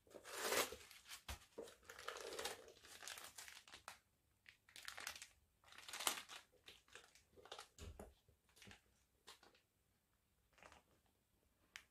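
Crumpled packing wrapping being pulled out of a new handbag and handled, crinkling and rustling in irregular bursts. It thins to a few light clicks and rustles over the last few seconds.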